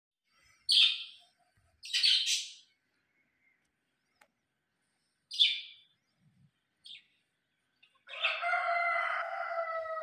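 Alexandrine parakeets calling: short, harsh calls about a second in, twice in quick succession around two seconds, and again around five and a half seconds, then a drawn-out call lasting about two seconds near the end.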